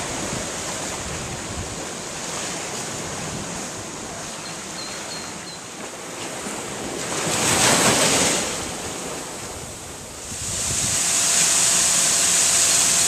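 Sea waves washing against a seawall and shore, with wind on the microphone, and a swell of surf about two-thirds of the way through. Then, from about ten and a half seconds in, the steady, louder hiss of a large fountain's tall water jets falling into its basin.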